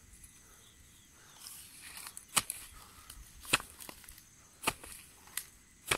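A long-handled hoe striking into soil: about five sharp chops, roughly one a second, starting about two seconds in.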